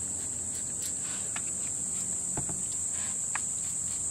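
Steady high-pitched insect chirring with a few faint light taps.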